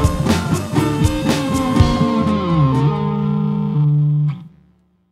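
Instrumental ending of a guitar-led indie rock song, with electric guitar and bass. A steady beat for about two seconds gives way to a descending bass run into a held final chord, which cuts off suddenly about four seconds in.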